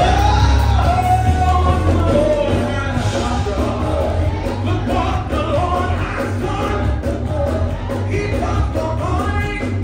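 Church worship music with amplified singing over a strong, steady bass, filling a large hall.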